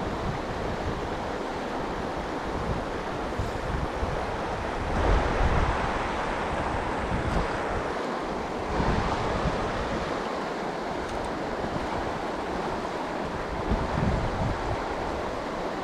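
Shallow river rushing over a cobble riffle, a steady wash of water. Wind buffets the microphone in low rumbling gusts, the strongest about five seconds in.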